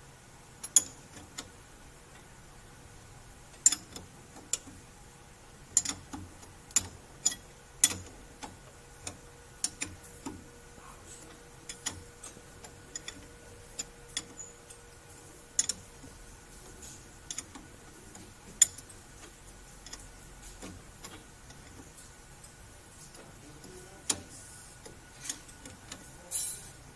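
Combination wrench turning the nut on a truck's ball joint stud: irregular sharp metallic clicks as the wrench is swung and reset on the nut, some much louder than others.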